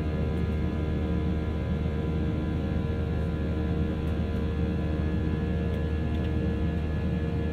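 Steady jet-engine and airflow drone inside the cabin of an Airbus A320-200ceo, a deep hum with several steady whining engine tones held level above it.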